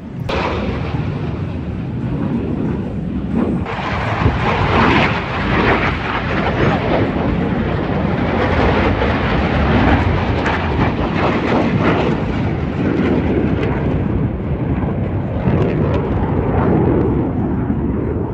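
Loud jet noise of Blue Angels F/A-18 Super Hornets flying past, a continuous rushing sound. It grows louder and brighter about four seconds in and stays strong throughout.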